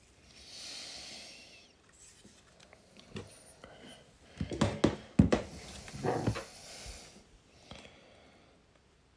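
Clicks, taps and scraping from hands working on the small, brittle plastic parts and glass of a car's multi-function display unit, with a short breathy hiss near the start and a quick run of sharper knocks in the middle.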